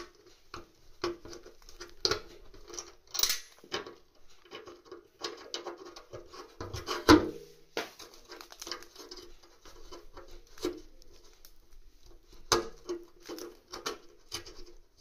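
Plumbing parts being handled and knocked together: an irregular run of clicks, taps and rattles, with one loud knock about seven seconds in.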